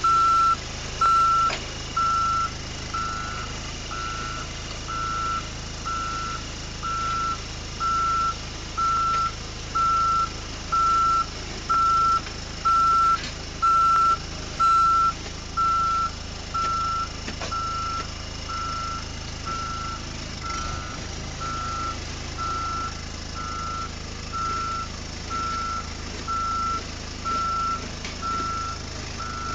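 Reversing alarm on a heavy vehicle, a single steady tone beeping about once a second, with the vehicle's engine running low underneath.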